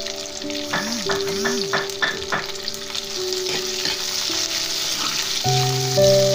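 Sliced onions, dried red chillies and dal sizzling in hot oil in a pan as they are stirred with a spoon, with a few short clicks of the spoon about a second in. Background music plays over it.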